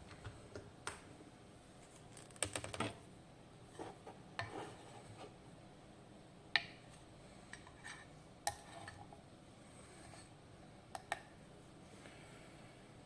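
Scattered sharp metal clicks and clinks of a lock and small tools being handled, with a quick cluster about two and a half seconds in and single clicks after.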